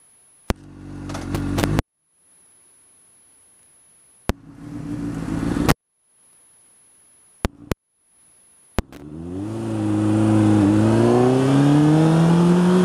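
Honda CBR600 sport bike's inline-four engine accelerating away, heard through a faulty microphone that cuts out: two short bursts of rising engine noise are each chopped off into dead silence, with a few sharp clicks at the dropouts. From about nine seconds the sound holds, and the engine pitch climbs steadily as the bike picks up speed.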